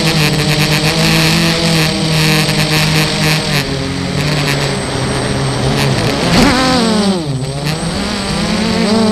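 Armattan FPV quadcopter's electric motors and propellers whining in flight, heard from the onboard camera. The pitch holds fairly steady, climbs briefly about six seconds in, drops low a second later as the throttle comes off, then rises again near the end.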